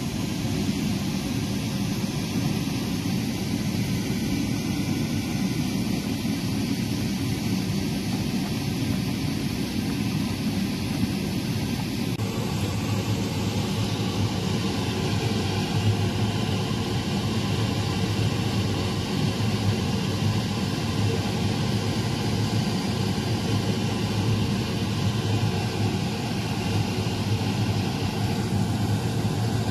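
Steady rushing, fan-like noise with no clear beat or tone, shifting slightly in character about twelve seconds in.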